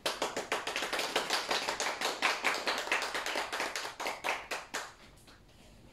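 A small group of people clapping, starting suddenly and dying away about five seconds in.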